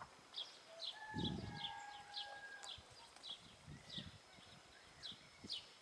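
A small bird chirping in short high calls repeated two or three times a second, with a few soft scuffs of a young donkey's hooves on dirt.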